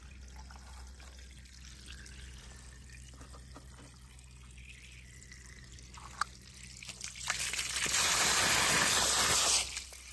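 Faint handling clicks over a low background, then a loud steady hiss for about two seconds near the end.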